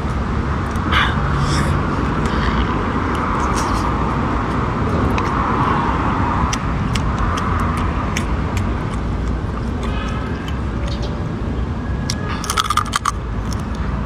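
Steady road traffic noise, with small clicks and smacking from sea snail shells being handled and the meat sucked out, a quick cluster of clicks near the end.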